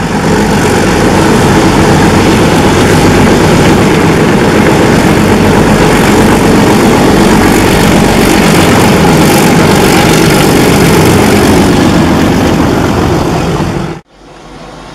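ALCO diesel locomotive engine running loud and steady under heavy power, as the locomotive hauls a passenger train toward the listener. The sound cuts off abruptly near the end.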